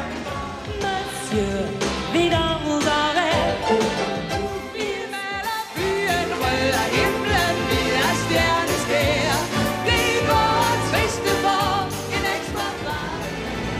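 Pop song with sung vocals over a band accompaniment. A woman sings lead with a man singing along, and there is a short break about five seconds in where one song excerpt cuts to the next.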